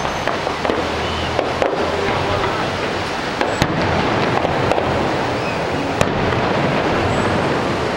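Fireworks exploding over a constant din, with several sharp bangs; the two sharpest come about halfway through and about three-quarters of the way through.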